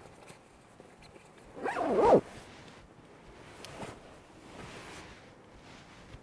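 A zipper is pulled once in a single quick stroke about two seconds in, building and then stopping abruptly; fainter rustling follows.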